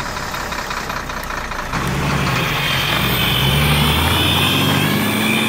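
A truck engine running, its pitch rising a little past the middle.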